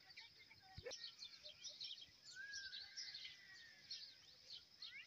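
Faint background birdsong: many short, high chirps from small birds overlapping throughout, with one longer arched whistle about two and a half seconds in.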